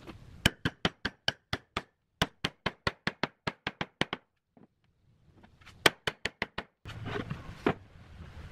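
Quick, even series of sharp wooden knocks, about five a second, in three short runs with silent gaps between them, as square pine table legs are knocked down onto glued dowels in the base.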